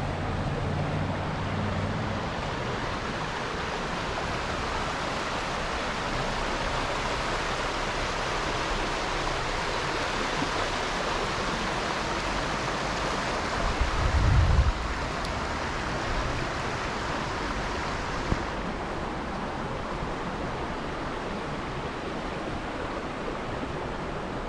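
Steady rushing of running water, with a brief low rumble a little past the middle and a single click soon after.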